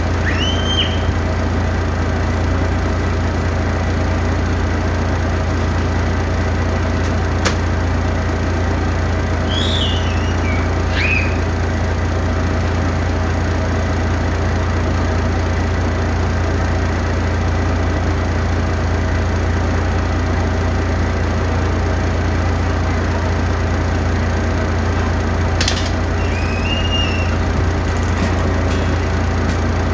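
A steady, loud, low mechanical hum, like an engine running without change, with a few short high chirps and two sharp clicks.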